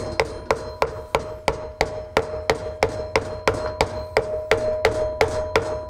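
Hammer tapping a wooden board laid across a motorcycle wheel hub, about three light, even blows a second, driving the wheel seal down flush into the hub. A steady ringing tone carries on between the blows.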